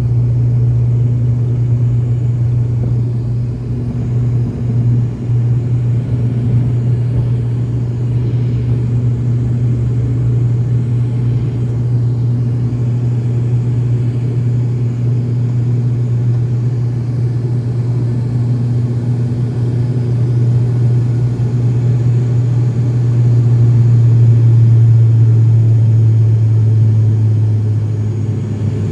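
Propeller plane's engines droning steadily in a deep low hum, getting somewhat louder a little over three-quarters of the way through and easing off near the end.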